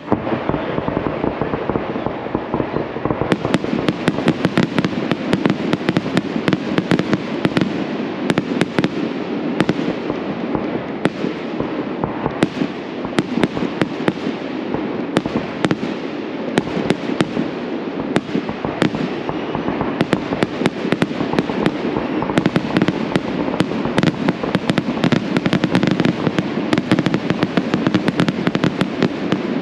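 Aerial fireworks going off in a dense, continuous barrage: rapid, overlapping bangs and crackling as shells launch and burst one after another without a break.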